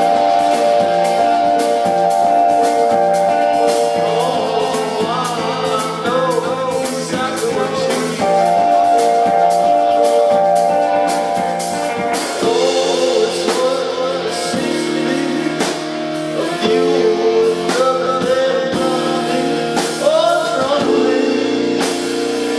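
Indie rock band playing live: electric guitars, a Nord Electro keyboard holding long chords, and a drum kit, with a male vocalist singing over them.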